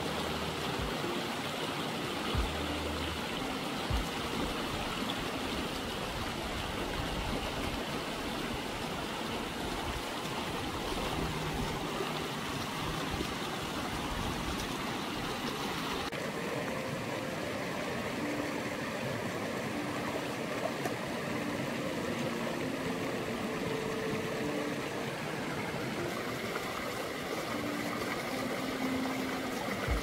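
Small rocky forest stream rushing steadily over low cascades, with two light knocks in the first few seconds.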